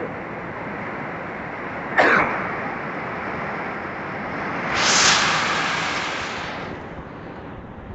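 Heavy rain pouring steadily, with a single short cough about two seconds in. A louder surge of rain and wind hiss comes from about five seconds to nearly seven, then eases.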